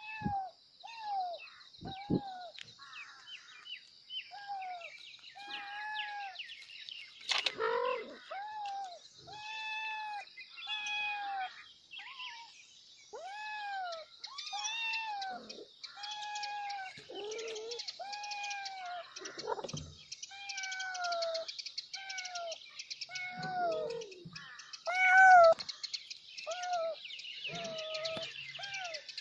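Kitten meowing over and over, about once a second, each meow a short cry that rises and falls in pitch, calling for its mother. A steady high insect buzz runs underneath.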